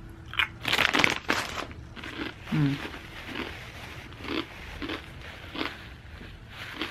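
Crunchy jalapeño potato chips being bitten into and chewed: a loud crunching bite early in the first two seconds, then regular chewing crunches about twice a second.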